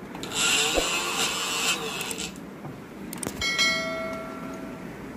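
A small electric sewing-machine motor whirring for about two seconds as its foot controller is pressed, then a click and a bell-like ding that rings out for about a second and a half.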